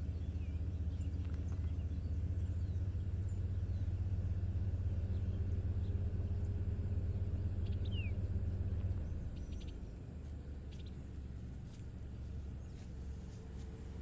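Outdoor ambience: a steady low rumble that eases off about nine seconds in, a faint bird chirp around the middle, and a few light clicks near the end.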